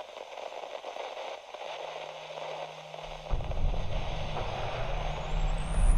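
Layered sound effects: a crackling, static-like noise, joined about three seconds in by a deep rumble that keeps building, with a high whine rising in pitch near the end.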